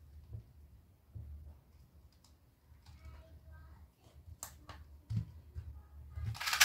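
Mostly quiet, with faint scattered clicks and taps of a 2x2 speedcube being handled in the fingers and set down on a mat. A louder flurry of clicking starts right at the end.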